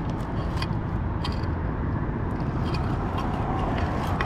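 Steady low outdoor rumble, with a few faint clicks and scrapes as a gloved hand handles a muck-caked metal car part pulled up by a magnet.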